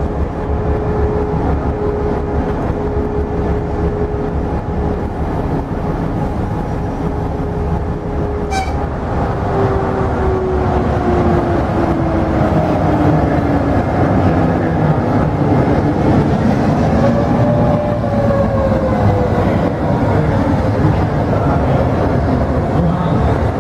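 MÁV M61 'Nohab' diesel locomotive running as it moves slowly past, its EMD two-stroke V16 engine giving a steady low rumble. The engine note holds level, then drops about nine seconds in as the locomotive eases down. A short click is heard near nine seconds.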